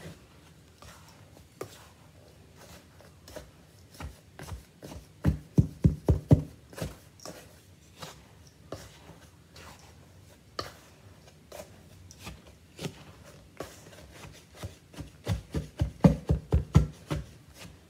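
Spatula stirring and scraping a dry glutinous rice flour mix in a stainless steel bowl, with scattered clicks. Twice, about five seconds in and again near the end, it knocks against the bowl in a quick run of loud taps, about six a second.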